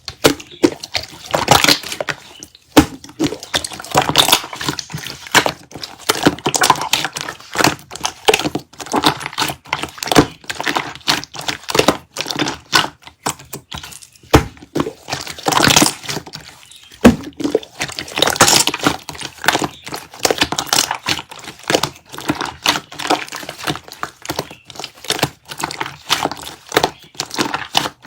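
Slime being squished and stretched by hand, a dense, uneven run of clicks, crackles and pops with louder swells every few seconds.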